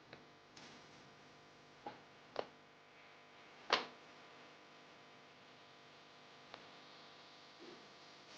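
Near silence broken by a few light clicks and taps, the loudest about four seconds in: meter probes touching the solder side of an amplifier circuit board during voltage checks.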